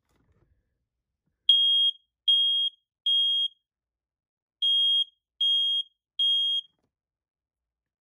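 Kidde i9060 smoke alarm sounding its test: a high-pitched piezo horn beeping three times, a short pause, then three more beeps, the temporal-three evacuation pattern. The beeps start about a second and a half in, with the test button held down.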